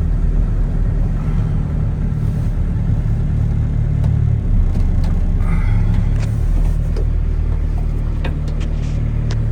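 Truck engine running steadily with a low rumble, with a few light clicks near the end.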